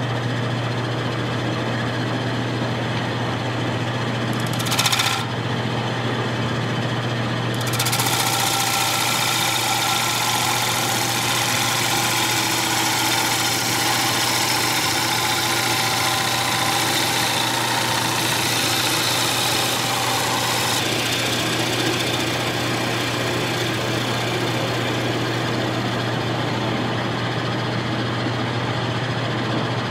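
Wood lathe running with a steady motor hum while a turning gouge cuts into the spinning wooden bowl, throwing off long shavings. A brief scrape comes about five seconds in; steady cutting starts about eight seconds in and goes on to the end, a little softer in its later part.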